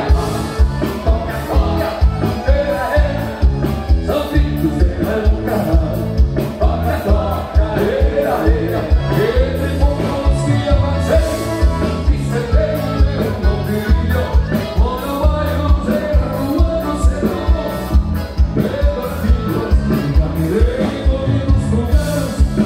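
Live gaúcho band music with a steady beat, strong bass and singing.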